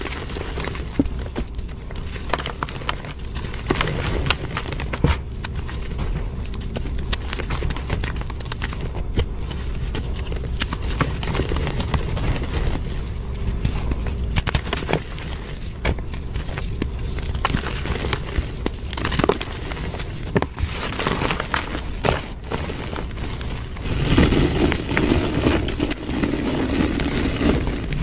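Reformed gym chalk being crushed and squeezed by hand in a tray of loose powder: a steady run of soft crunches and small crackles as the blocks crumble. It grows louder and busier near the end.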